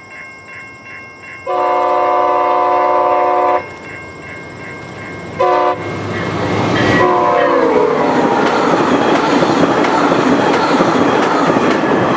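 VIA Rail Siemens Venture passenger train sounding its horn on approach: a long blast, then a short one, then a blast whose pitch drops as the train passes. This gives way to the loud rush of the trainset going by at speed. A bell rings about three times a second during the approach.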